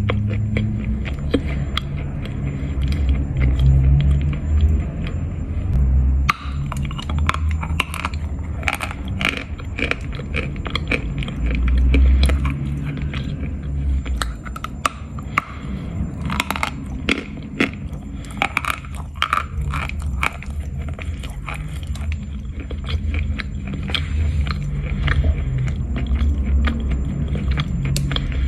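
A person biting and chewing lumps of Khrapovsky edible chalk: dry, crisp crunches that come thick and fast from about six seconds in.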